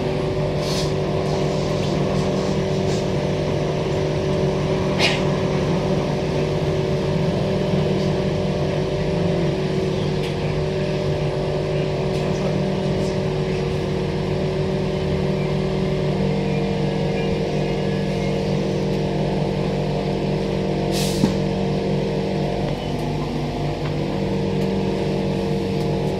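Transperth A-series electric multiple unit running, heard from inside the passenger car: a steady electric hum from the traction motors over the rumble of wheels on rail. The pitch of the hum changes about two-thirds of the way through, and there are two short sharp clicks, one about five seconds in and one near the end.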